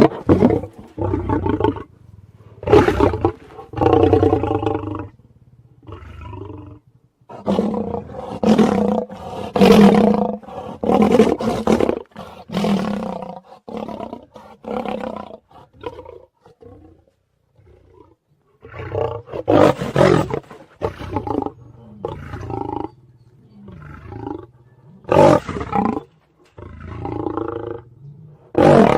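A series of lion roars and snarls: separate loud calls, most lasting about a second, with short pauses between them and a longer pause about two-thirds of the way through.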